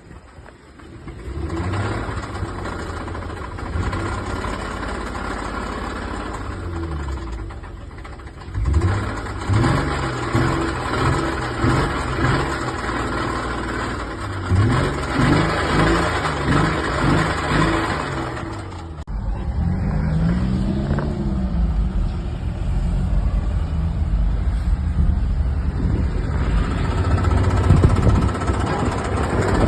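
2016 Honda Pilot's 3.5-litre V6 engine running and revved in a string of short throttle blips, pitch rising and falling, then settling to steadier running after an abrupt change about two-thirds in. This is the engine noise that worsened until a bearing shell was destroyed.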